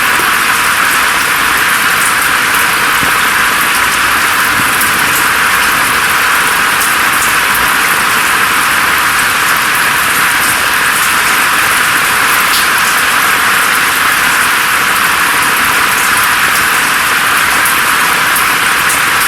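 Steady forest rain falling through foliage: a dense, even hiss with faint scattered drop ticks, its sound heavy in the upper middle and thin below.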